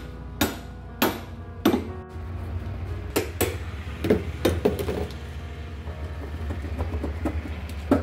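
Hammer striking a steel punch held against the aluminium inner liner of a chest freezer, giving sharp ringing metal blows. There are about four strikes evenly spaced about half a second apart at the start, a looser run of blows about three to five seconds in, lighter taps after, and one hard strike at the end, over a steady low hum.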